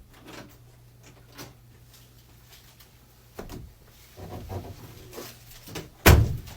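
Scattered light knocks and handling noises over a low steady hum, then one loud sharp thump about six seconds in, like a door or cupboard being shut.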